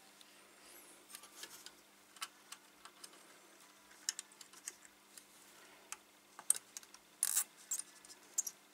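Small scattered clicks and ticks of a thin wire lead being bent and threaded through a solder tag on a tube radio's metal chassis, with a few sharper clicks near the end. A faint steady hum runs underneath.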